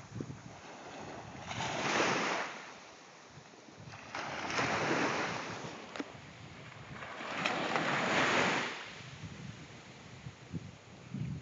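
Small waves breaking and washing up a sandy shore: three swells of surf that rise and fall about every three seconds.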